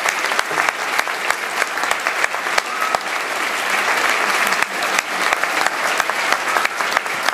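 Large audience applauding steadily: a dense, unbroken patter of many hands clapping.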